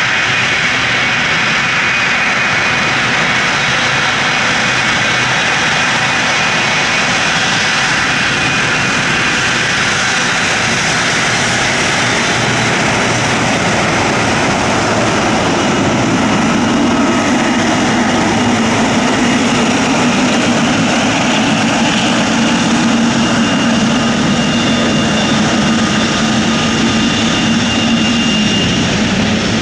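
Large aircraft's engines running loud and steady, with several high whining tones over the noise. From about halfway a steady low hum comes in underneath.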